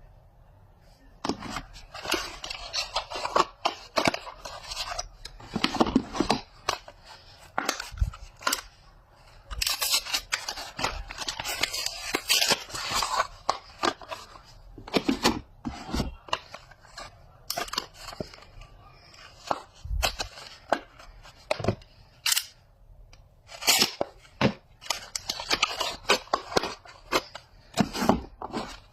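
Lux soap packaging being opened and unwrapped by hand: crinkling and tearing of the wrapper, broken by sharp snaps and clicks. It starts about a second in and comes in runs with short pauses.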